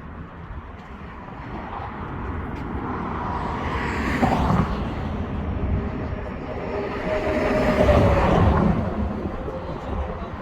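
Highway traffic going by on the bridge, swelling twice as vehicles pass, the second with a faint falling pitch.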